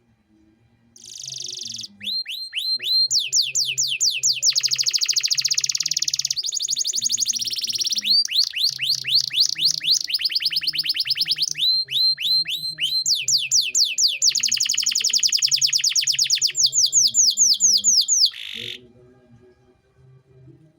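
Domestic canary singing a long song of rolling trills: runs of fast, high, downward-sweeping notes repeated many times a second, switching to a new trill every second or two. It starts about a second in and stops near the end.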